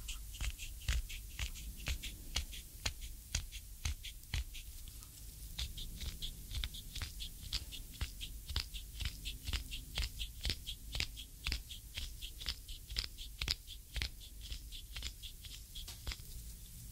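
Hands massaging the sole of a cream-slick bare foot, knuckles and a wooden reflexology stick pressing and grinding into it: a quick, even run of small sticky clicks from the oiled skin, about three a second, picked up close on binaural microphones.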